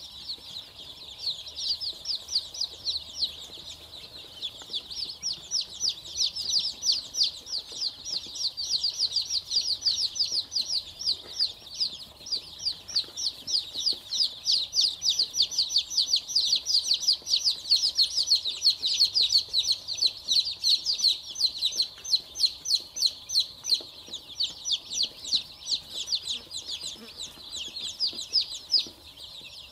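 A flock of Dong Tao chicks peeping without pause: many short, high, downward-sliding peeps overlapping several times a second.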